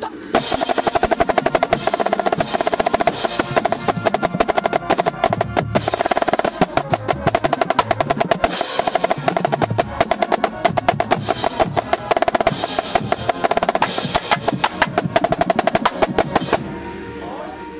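Marching snare drums playing fast, dense rolls and sticking patterns on tightly tuned drums, which stop abruptly near the end.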